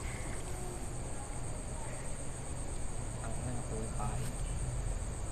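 Crickets chirping in a steady, continuous high-pitched trill over low background noise.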